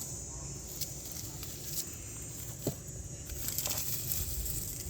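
A few separate soft crackles and rustles of onions and their dry tops being pulled and handled, over a steady high insect chirring.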